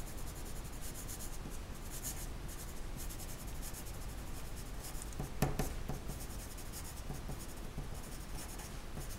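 Pencil writing on a sheet of paper: a steady run of soft scratchy strokes. About five and a half seconds in there is one brief, louder noise.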